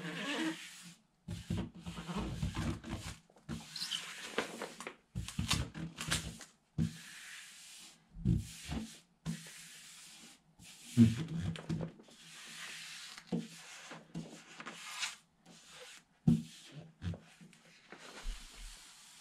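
Hands rubbing a wall sticker flat against the wall and handling its paper backing sheet as it is peeled away: repeated rubbing and rustling strokes with a few light knocks.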